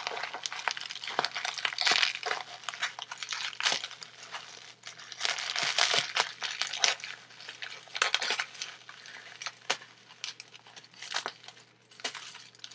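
Plastic bubble wrap crinkling and rustling as it is handled and unwrapped, in irregular bursts with a few sharp clicks.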